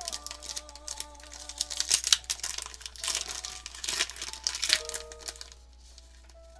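Crinkling and tearing of a foil Pokémon booster pack wrapper being opened by hand: a dense run of sharp crackles that stops about five and a half seconds in.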